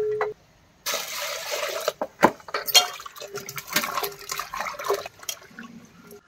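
Shallots and garlic cloves being washed by hand in water in an aluminium pot: a dense splash about a second in, then irregular sloshing and splashing with sharp knocks of the bulbs against the metal.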